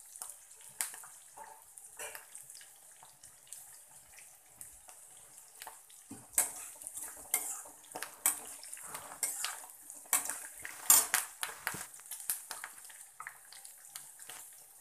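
Tempering of dals, peanuts, mustard seeds, chillies and curry leaves sizzling in hot oil in a pan, with a ladle scraping and clinking against the pan as it is stirred. The stirring clatter is heaviest in the second half.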